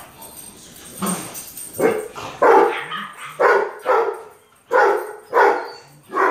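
A dog barking in a quick run of about seven loud barks, one roughly every two-thirds of a second, starting about two seconds in.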